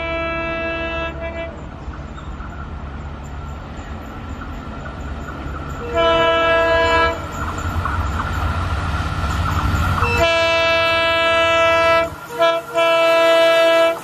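WDP4D diesel locomotive's air horn sounding in several blasts: one ending about a second in, another around the middle, then a long blast, a brief break and a final blast, over the low rumble of the approaching train's engine, which swells and then cuts off suddenly near the end.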